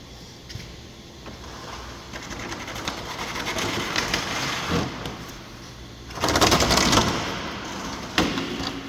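Water spray from a pressure washer hitting the planter's metal, rising in and out as the wand is moved. It is loudest in a burst about six seconds in, with a shorter blast near the end.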